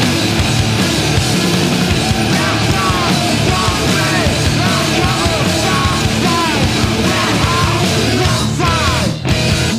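Loud, distorted screamo/noise-rock band music with yelled vocals. It cuts off abruptly near the end.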